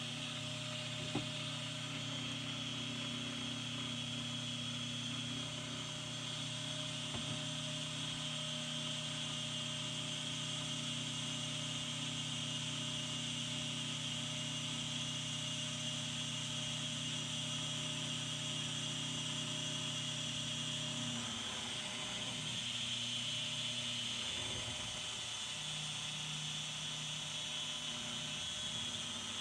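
Electric stick blender running steadily, immersed in soap batter and bringing it from a light trace toward a medium trace. Its hum changes slightly about two-thirds of the way through.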